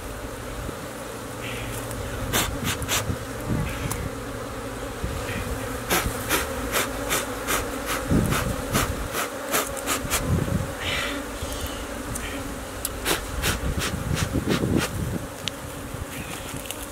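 A colony of honeybees buzzing in a steady hum at its open combs as a hand reaches into the nest, with many sharp clicks and crackles scattered throughout.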